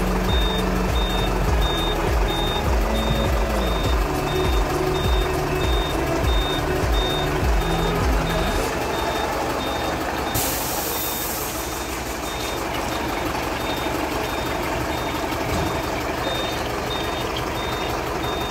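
A vehicle's reversing alarm beeping steadily, a short high beep about twice a second. Low music notes run under it for the first half, and a brief burst of air hissing comes about ten seconds in.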